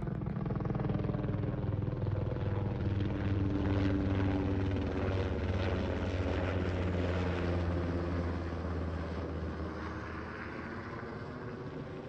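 Helicopter flying overhead, its rotor beating steadily. It is loudest a few seconds in, then fades and drops slightly in pitch as it moves away.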